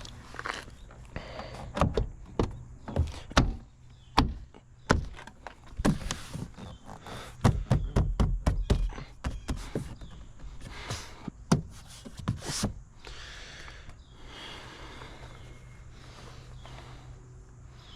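A BMW E90's interior door panel being pressed onto the door, its plastic retaining clips knocked and snapped into place: a run of sharp thunks over the first two-thirds, densest about halfway through, then quieter handling.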